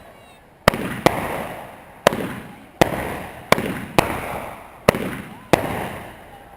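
Consumer aerial fireworks going off in a rapid series: eight sharp bangs at irregular intervals of about half a second to a second, each followed by a fading hiss.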